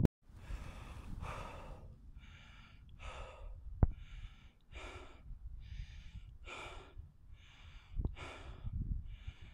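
A person breathing hard close to the microphone, with quick, regular breaths about one every second. There are two short clicks, one near the middle and one near the end.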